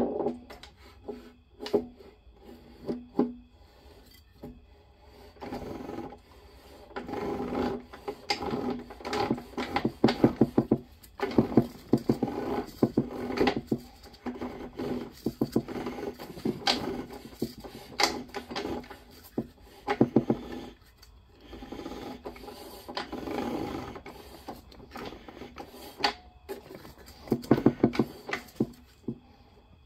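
Steel transmission parts clinking and scraping in irregular bursts inside a 4L80E automatic transmission case as a part is worked back and forth by hand to line its splines up with the 2nd-gear clutch plates.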